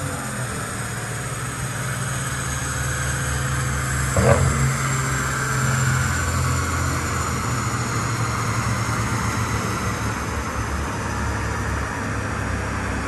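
2020 Audi RS6 C8's twin-turbo 4.0-litre V8 running steadily at idle through a full Akrapovic titanium exhaust with sports cats, with one brief louder burst about four seconds in.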